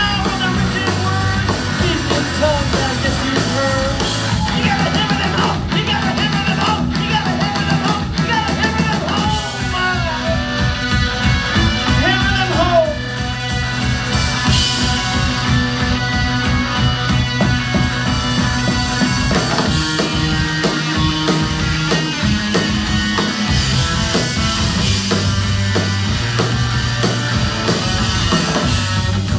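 Live rock band playing: electric guitar, electric bass and drum kit, with a singer's voice in places. The drums drive a fast, even beat from about ten seconds in.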